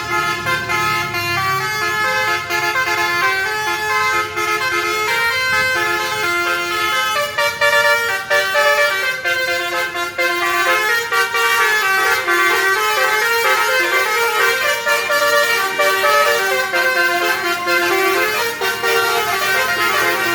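Basuri telolet horns, the multi-tone melody horns fitted to Indonesian buses, playing tunes against each other in a horn battle. Several horn tunes overlap, stepping quickly from note to note.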